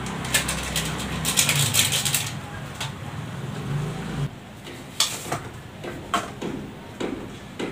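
Plastic spice packet crinkling as it is torn and shaken out over the pot, over a low hum that stops about four seconds in. Then a few sharp clicks and knocks of a plastic jar being taken down and its lid handled.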